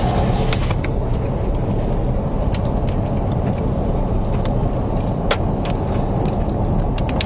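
Steady road and engine rumble heard inside a car driving on a wet highway, with scattered sharp ticks of precipitation hitting the car.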